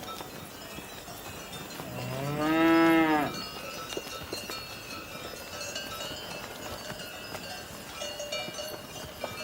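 A cow mooing once, about two seconds in, a call of roughly a second and a half that rises in pitch and then falls away. Faint bell-like ringing and small clicks run in the background.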